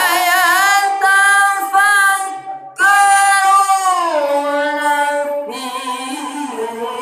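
A high voice singing long held notes with a wavering vibrato. It breaks off briefly about two and a half seconds in, then sings a second long phrase that falls in pitch about four seconds in.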